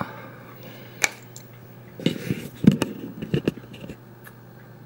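Handling noise from model-kit parts in their plastic bags and a magazine being picked up: a sharp click about a second in, then a short run of rustles and knocks in the middle.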